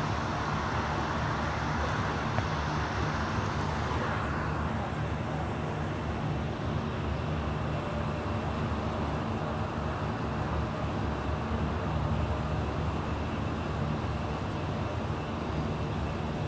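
Steady low outdoor rumble, like distant traffic or machinery, with a louder rushing noise over the first few seconds that fades about four seconds in.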